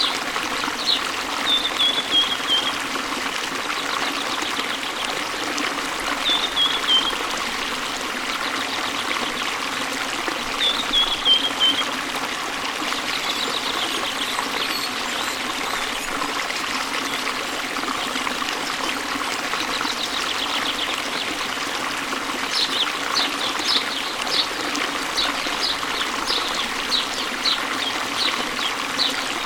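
Waterfall and stream water rushing steadily, with small birds chirping over it: a few short falling trills in the first half, then quick repeated chirps, about two a second, over the last seven seconds.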